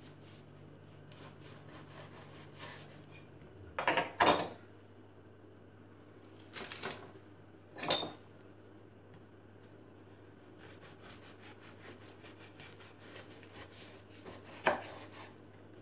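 Kitchen knife sawing through a once-baked biscotti loaf on a wooden cutting board: quick rasping strokes of the blade through the crust, with a few sharp knocks of knife and slices on the board, the loudest about four seconds in and near the end.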